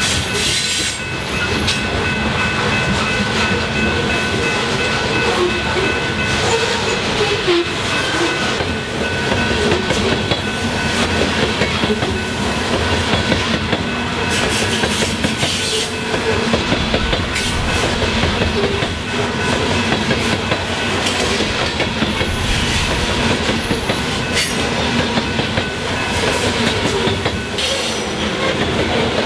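A loaded coal train's cars rolling past close by: steady rumble and clickety-clack of steel wheels over the rail joints, with thin high ringing tones running over it.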